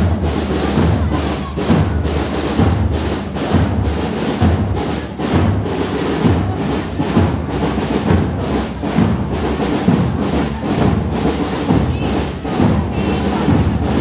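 Marching drums, led by a bass drum, beating a steady march rhythm of about two strokes a second.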